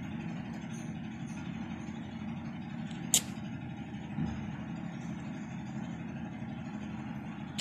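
Steady low background hum with one sharp click about three seconds in.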